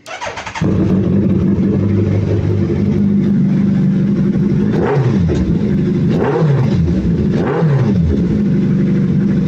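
Suzuki Hayabusa inline-four motorcycle engine, newly fitted with an aftermarket exhaust, cranked by its starter and catching about half a second in, then idling, with three quick throttle blips in the middle before settling back to idle.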